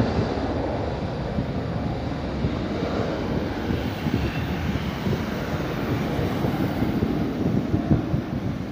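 Jet airliner's engines running as the plane passes along the runway, a steady noise that slowly grows fainter.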